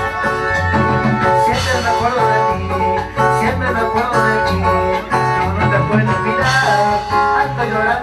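Costeño dance music played loud and continuous: a steady bass beat under sustained melody lines.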